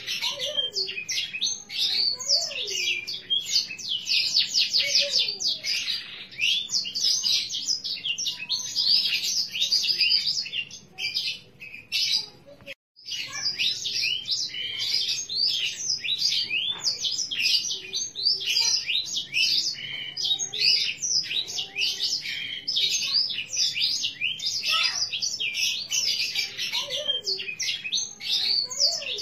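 Green canary singing a long, fast, nearly unbroken song of rapid trills and chirps. The song drops out for a moment about halfway through.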